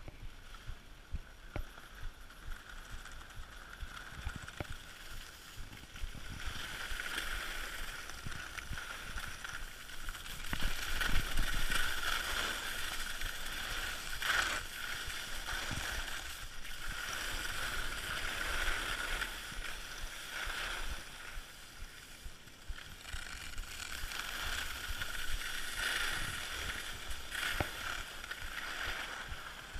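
Skis sliding and scraping over packed snow, a hiss that swells and fades several times during the run, with low rumbles of wind on the microphone.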